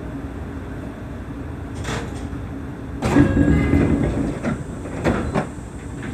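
Seibu 30000 series train standing at a station platform with a steady low hum; about three seconds in, its passenger doors slide open with a loud rush, followed by a few sharp knocks.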